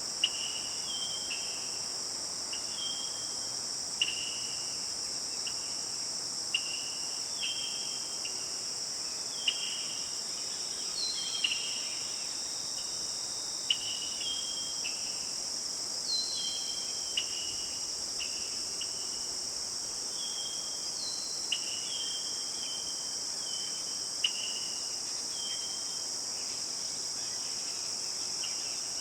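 Steady high-pitched chorus of insects such as crickets, with short falling chirps repeating roughly once a second over it.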